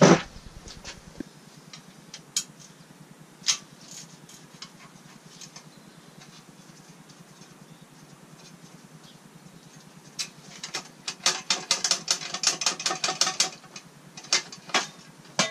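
Ratchet wrench clicking in quick runs as bolts are undone on the clutch cover of a Toyota 4A-GE engine. A knock and a few single clicks come first, and the rapid ratcheting fills the last five seconds or so.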